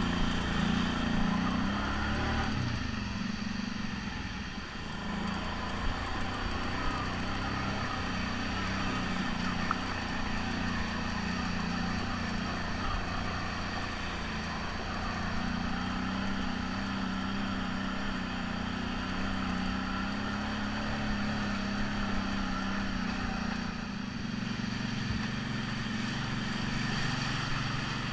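ATV engine running under throttle as it climbs over a rocky dirt trail, its note rising and falling with the throttle. It eases off for a moment about three to five seconds in, and again a few seconds before the end.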